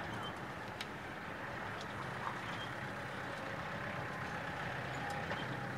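Compact farm tractor with a front-end loader running, a faint steady engine drone as it drives along.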